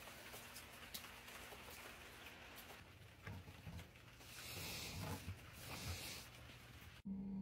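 Gunpowder on paper burning: faint crackles and ticks, then a soft hissing flare for a second or two as a match sets off the powder. Near the end the sound cuts off suddenly to a steady low hum.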